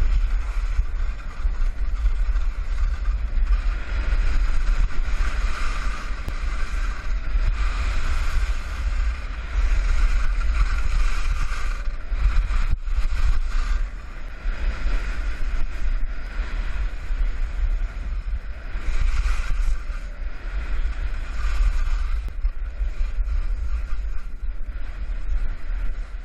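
Skis hissing and scraping across snow on a downhill run, the hiss swelling and fading every few seconds as the skier turns, under heavy wind rumble on the microphone.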